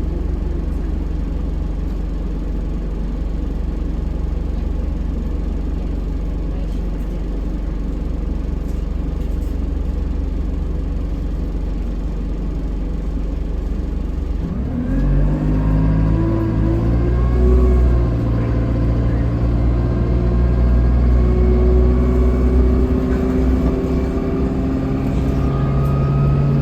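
Alexander Dennis Enviro200 single-deck bus's diesel engine idling with a steady low hum, then about halfway through revving up as the bus pulls away, the pitch climbing slowly as it accelerates.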